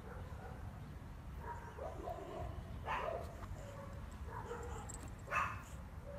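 Pug puppies giving small yips and whines while they tussle and mouth at each other, with two sharper, louder yelps, about three seconds in and again near the end.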